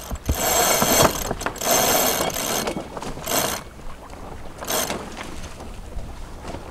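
A sailing catamaran's winch being cranked, its pawls ratcheting in four bursts: two long ones of about a second each, then two shorter ones.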